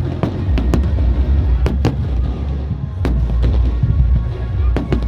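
Fireworks bursting overhead: several sharp bangs at uneven intervals over a steady low rumble, with music playing in the background.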